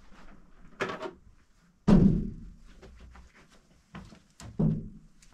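Metal door being handled and swung open: a clank about a second in, a loud thump just before two seconds in, then two softer knocks near the end.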